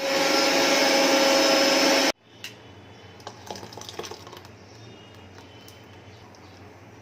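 Electric blender running at full speed on fruit for juice for about two seconds, then switched off abruptly, leaving light clicks and clatter of kitchen handling.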